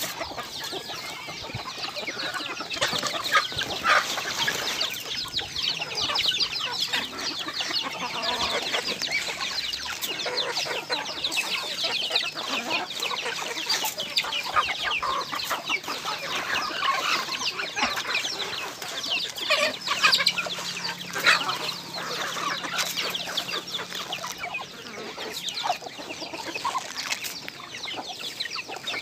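A flock of poultry feeding, with chickens clucking continuously and many quick short clicks and calls overlapping throughout.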